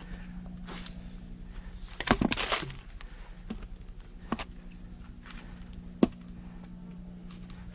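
Firewood being split: a short cluster of knocks and cracks a little after two seconds in, then three single sharp knocks, the sharpest about six seconds in, over a faint steady low hum.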